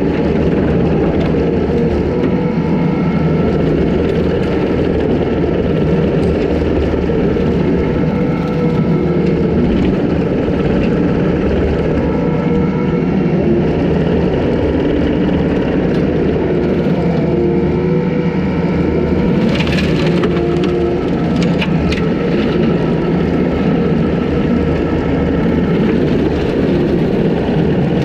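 Takeuchi TL250 compact track loader running hard with its hydraulic brush cutter attachment spinning, a loud steady drone as it mows dry grass and brush. About two-thirds of the way through, a few sharp cracks sound as woody brush snaps in the cutter.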